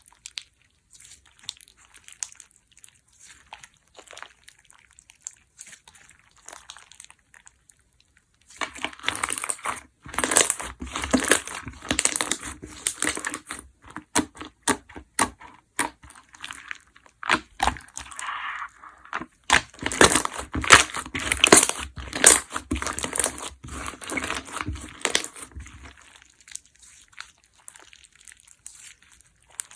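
Lemonade slime mixed with water-jelly bead deco parts being squished and worked by hand, giving crackling, popping clicks. Sparse, light clicks at first, then about eight seconds in a long run of dense, louder crackling that eases back to sparse clicks near the end.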